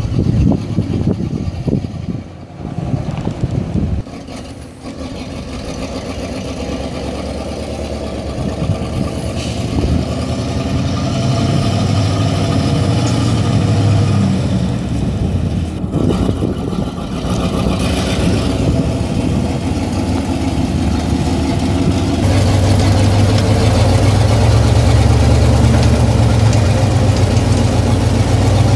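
Eight-cylinder gasoline engine of a 1972 Ford truck running as the truck drives slowly up. For the last several seconds it runs louder and steadier.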